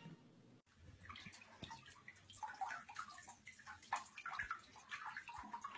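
Faint, irregular small splashes and drips of water, starting after a brief silence about half a second in.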